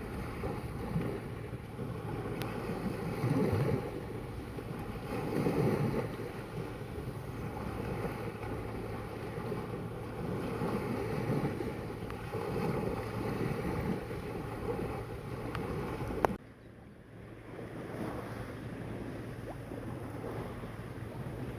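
Sea waves washing in, with wind buffeting the microphone; the surf swells louder twice in the first six seconds. About 16 seconds in the sound breaks off with a click and resumes quieter.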